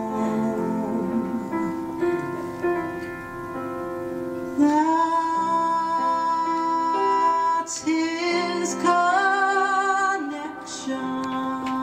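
A woman singing a slow song live, accompanied by a keyboard. About halfway in she slides up to a long held high note, and near the end she sings with a wide vibrato.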